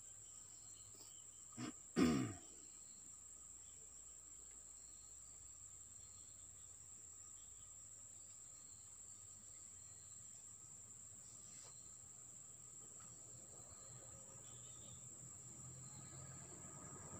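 Insects chirring in one steady high-pitched drone. About two seconds in, a brief loud sound slides down in pitch.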